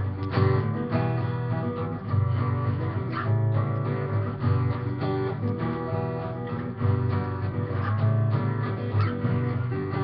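Acoustic guitar being strummed in a steady rhythm, its chords ringing on between the strokes.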